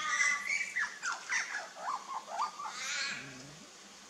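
Birds calling: a harsh, crow-like caw at the start, then a run of squawks and warbling notes sliding up and down, with a brief low call about three seconds in.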